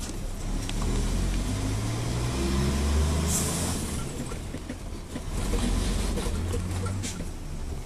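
Fire truck engine heard from inside the cab, rising in pitch as it accelerates about one to three seconds in, with a short hiss just after.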